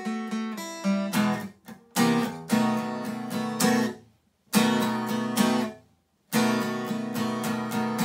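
Acoustic guitar playing a blues intro with no singing: strummed chords that cut off abruptly twice, about four and six seconds in, then settle into a steady, even strumming rhythm.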